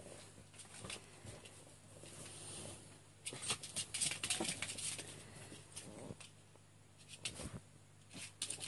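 A small Chihuahua's claws scratching and skittering on a mat and a hard floor as it plays, in bursts of quick scratches, the busiest a few seconds in and again near the end.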